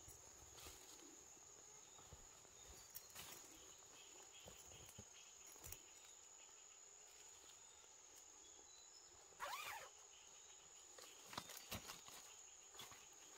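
Near silence: faint outdoor ambience with a steady high-pitched insect drone, scattered soft ticks, and one short call about two-thirds of the way through.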